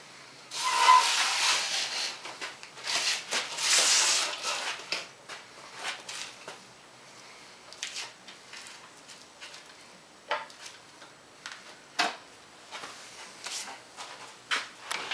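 Metal wheeled outboard motor stand being dragged across a concrete shop floor: rough scraping in bursts over the first few seconds, followed by a few light knocks as it is set in place.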